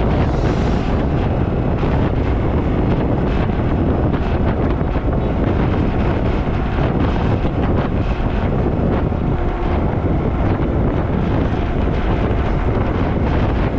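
Wind rushing over the microphone of a Gatoma 200 motorbike being ridden at speed, a loud, steady roar that covers the bike's own running.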